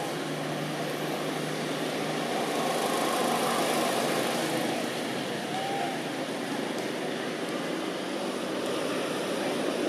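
Steady background noise of road traffic, swelling gently as a vehicle passes about three to four seconds in, with a faint engine hum early on and a faint short chirp near the middle.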